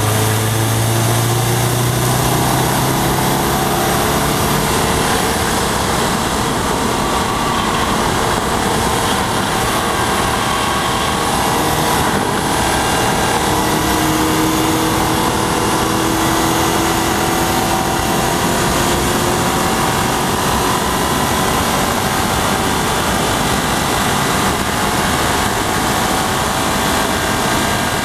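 2011 Subaru WRX's turbocharged flat-four engine pulling at track speed, its note rising slowly twice, under heavy, steady wind and road noise.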